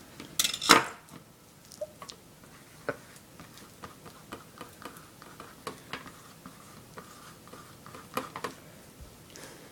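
Banana being handled and mashed in a small bowl: scattered soft squishes and small utensil taps, with one louder knock about half a second in.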